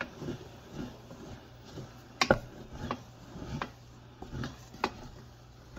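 Wooden spoon stirring thick ketchup-based sauce in a stainless steel saucepan, with scattered knocks of the spoon against the pan, the loudest a little over two seconds in.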